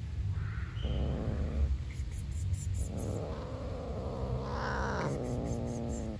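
Black long-haired stray cat growling low and rough in several drawn-out stretches, the last one rising into a higher moan about five seconds in: a warning growl guarding its food from another cat.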